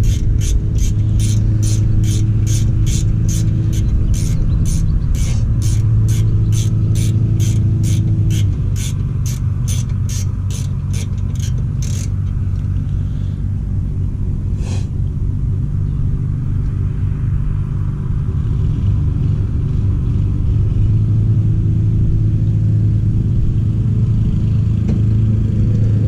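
Ratcheting wrench clicking steadily, about two to three clicks a second, as a rear brake caliper bolt is wound out; the clicking stops about twelve seconds in, and one more sharp click follows a few seconds later. A steady low rumbling hum runs underneath throughout.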